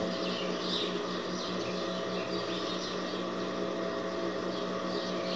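Industrial sewing machine's motor humming steadily while the machine sits idle, with fabric handled close by and a few faint high chirps.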